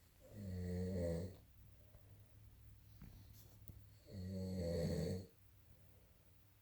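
A man snoring in his sleep: two snores, each about a second long and about four seconds apart.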